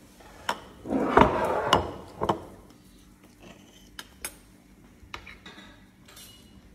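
Tableware being handled: clinks of cutlery, plates and a glass honey jar, with a louder scraping rattle about a second in and a few sharp clicks after it.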